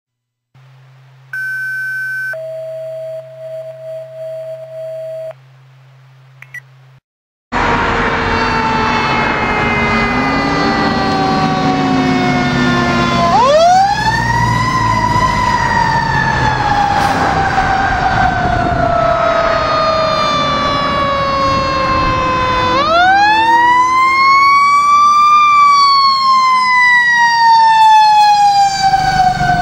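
Fire station alert tones: a low hum with a short high beep, then a steadier lower tone for about three seconds. About seven seconds in, fire apparatus sirens take over: one siren winds up quickly and falls slowly, twice, over a second siren's long falling wail.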